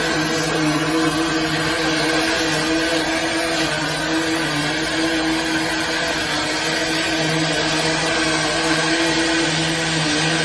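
High-pressure drain-cleaning washer running steadily while its lance sprays water into a drain pit: a constant motor hum under the hiss of the water jet.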